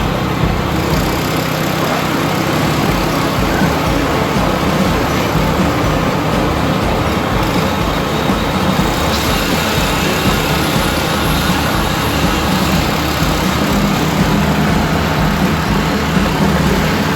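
Construction machinery engine running steadily at a constant load.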